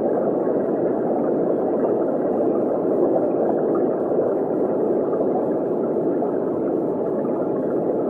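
Underwater ambience: a steady, muffled rush of water with no breaks or distinct events.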